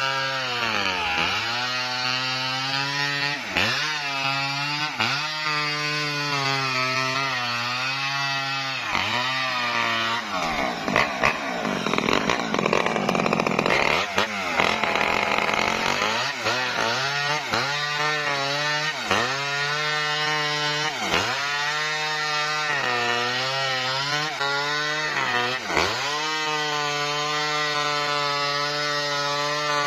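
Maestro mini chainsaw ripping lengthwise along a felled coconut palm trunk, its two-stroke engine dipping in pitch every second or two as the chain bites under load. About ten seconds in it runs rougher and noisier for several seconds while it is off the wood and carried to the next cut, then settles back into the same repeated bogging as it cuts again.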